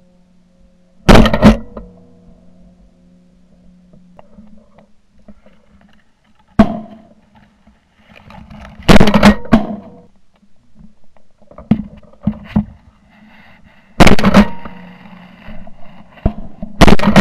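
A string of loud shotgun blasts recorded at close range from a camera mounted on the gun: pairs of shots in quick succession, the loudest about a second in, near nine seconds, about fourteen seconds in and at the end, with lighter reports between them.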